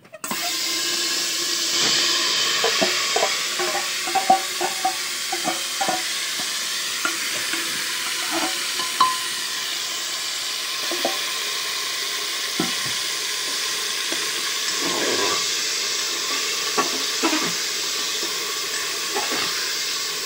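Food sizzling in a hot aluminium pressure cooker, starting suddenly as a steel bowl of wet ingredients is tipped in, then a steady sizzle while a metal ladle stirs, with repeated clinks and knocks of the ladle against the pot.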